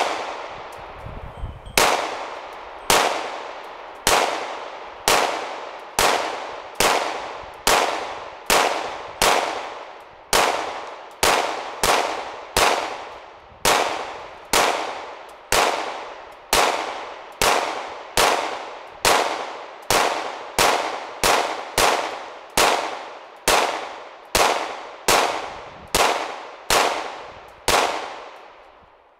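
Glock 9mm pistol fired one shot at a time, about thirty evenly paced shots a little under a second apart, emptying a 33-round magazine. Each shot is followed by a long ringing echo.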